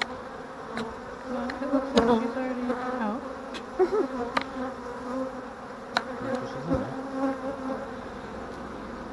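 Honey bees buzzing around an open hive: a steady hum, with single bees passing close by and rising and falling in pitch. A few light knocks sound over the hum, the loudest about two seconds in.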